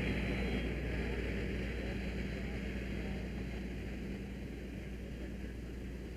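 Fire engine's engine running steadily with a low drone, growing gradually fainter.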